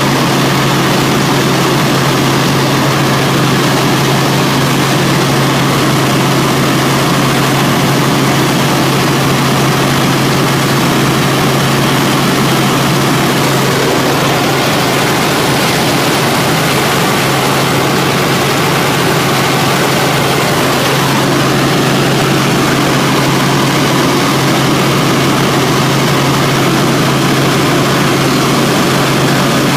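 Helicopter in level flight heard from inside the cabin: loud, steady engine and rotor noise with a constant low hum underneath.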